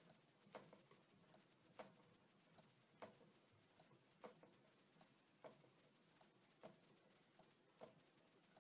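Homemade acrylic low-temperature-differential Stirling engine running on a candle's heat, its moving parts clicking faintly and regularly: a louder click about every second and a quarter, with a softer one between.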